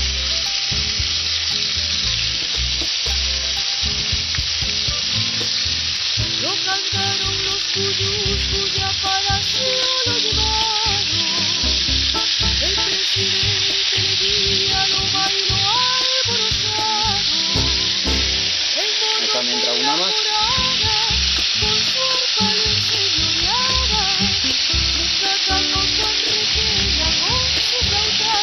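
Pieces of duck, still wet with their marinade, sizzling steadily as they fry in a skillet with a little hot oil.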